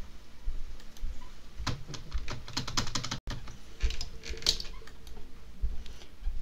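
Two short bursts of rapid light clicks, the first about a second and a half in and the second about four seconds in, over faint low thumps.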